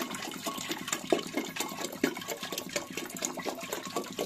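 Water pouring from a plastic jerrycan into a half-full metal kettle, an uneven splashing stream.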